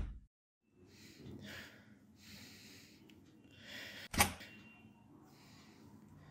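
A few faint, soft breathy puffs, and a single sharp knock about four seconds in, the loudest sound here.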